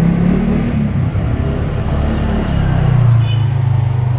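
A motor vehicle engine running close by, a steady low hum that drops in pitch near the start and settles lower and stronger about three seconds in.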